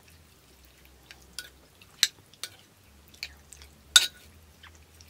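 Metal spoon stirring noodle soup in a ceramic clay pot, clinking against the pot: a handful of sharp clinks, the loudest about two and four seconds in.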